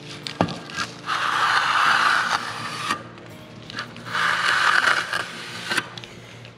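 Steel trowel scraping across wet mortar on a metal-lath wall: two long strokes of about two seconds each, with a few short knocks between them.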